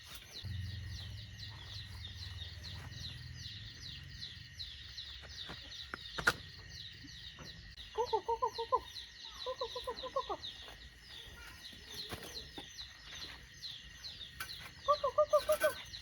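Mother hen clucking in three quick runs of rapid clucks, over continuous high-pitched chirping.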